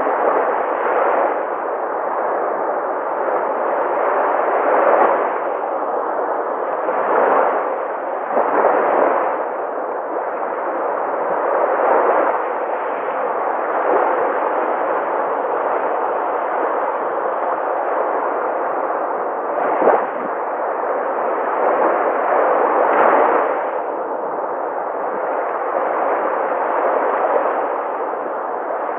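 Sea waves washing onto a shore: a steady rushing, swelling as waves break every few seconds, with one short sharp crash about twenty seconds in.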